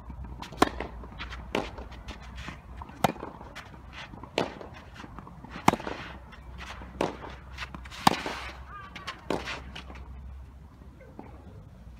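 A tennis rally that opens with a serve: rackets strike the ball back and forth, a sharp crack about every second and a quarter, eight in all. The loudest hits come from the near player, the fainter ones from across the net in between. The rally stops a little past nine seconds in.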